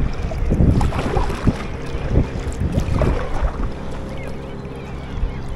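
Water lapping and slapping against a plastic fishing kayak's hull, with wind buffeting the microphone in irregular gusts.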